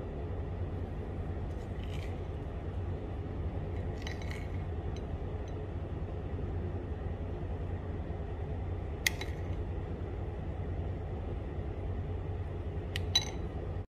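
A metal spoon clinks lightly against a glass bowl of custard four times, over a steady low hum.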